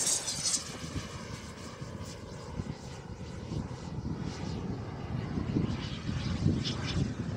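Small gas-turbine engine of a radio-controlled model jet in flight, its whine fading and falling slightly in pitch as the jet climbs away. Gusts of wind buffet the microphone.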